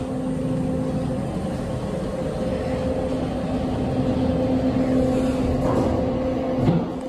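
KONE EcoDisc traction elevator heard from inside the car: a steady hum and low rumble as the car closes up and travels down, with a short knock near the end.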